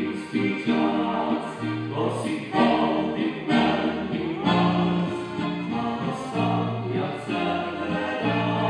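Live folk band playing through the stage PA: several voices singing together in harmony over accordion, acoustic guitar and upright bass.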